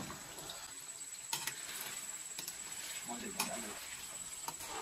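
Paneer cubes frying in hot oil: a steady sizzle with a few short clicks.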